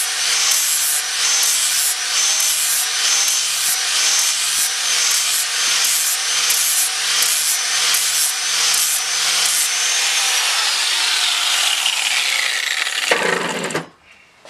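Angle grinder with a flap disc grinding the steel face of a club hammer head, a steady high motor whine under a rasping hiss that swells and fades about twice a second as the disc is worked over the head. About two-thirds of the way through the grinder is switched off and its whine falls steadily in pitch as it spins down, before the sound cuts off sharply near the end.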